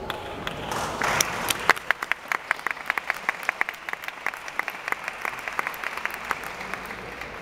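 Audience applauding: a dense run of hand claps that swells about a second in and slowly thins out near the end.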